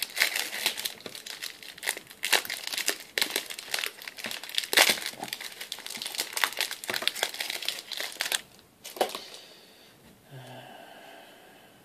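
Crinkling and tearing of a trading-card pack wrapper as it is handled and opened, in dense irregular crackles that stop about eight and a half seconds in. A faint short whine follows near the end.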